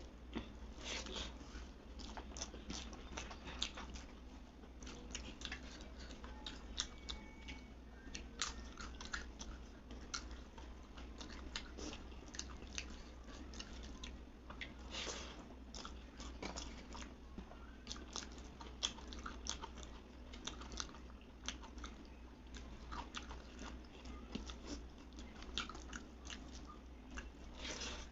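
A person eating a rice and dal meal close to the microphone: wet chewing and crunchy bites, with many small irregular clicks and crackles of mouth and food sounds, over a steady low hum.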